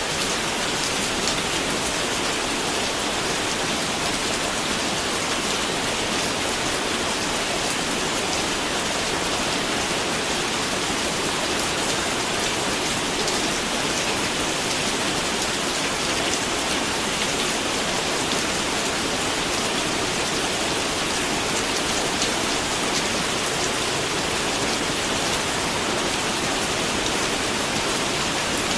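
Steady rain falling, an even hiss of water with many small drop impacts on a surface.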